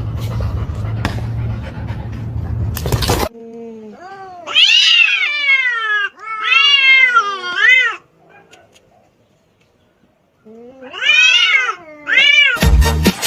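A cat yowling in long, drawn-out meows that rise and fall in pitch: three calls, a pause, then two more near the end. Before the calls there is a few seconds of low humming background noise with clicks.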